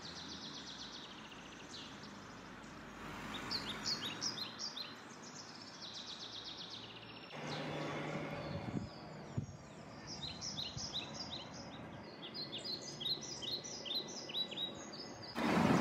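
Small birds chirping over faint outdoor background noise: many short, high chirps repeated throughout in quick runs. A low hum passes briefly in the middle, and a louder rushing noise sets in at the very end.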